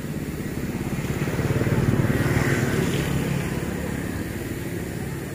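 An engine running with a rapid, steady throb, growing louder to a peak about two seconds in and then fading.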